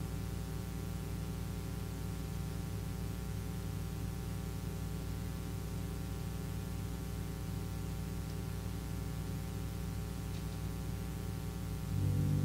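Steady electrical hum with hiss, with no speech or music in it. Louder low instrumental tones come back in near the end.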